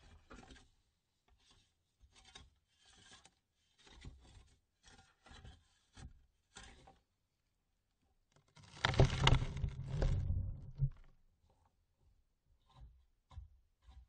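Dirt falling onto a wooden coffin lid: scattered small patters and trickles of soil, then a heavy shovelful landing about nine seconds in, a loud rush with a deep rumble lasting about two seconds, followed by a few last trickles.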